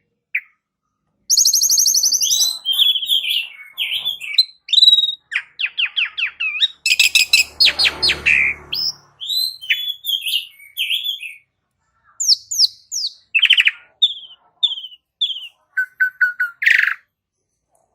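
Asian pied starling (jalak suren) singing a varied song of sharp whistles, fast trills and chattering notes, with a harsh rasping burst about eight seconds in and short pauses between phrases.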